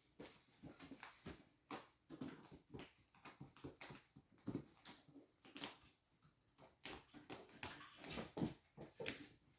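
Kittens scuffling at play: faint, scattered light taps and scratches of paws and claws.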